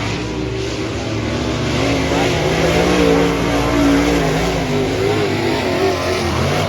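Several dirt-track modified race cars at racing speed, engines revving up and down as they go round the track, with more than one pitch wavering at once. The sound swells about two seconds in as the pack comes closer, then eases slightly.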